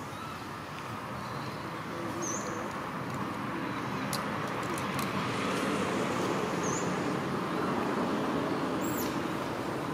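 Steady rumble of road traffic, growing slowly louder, with a few short high chirps like small birds over it.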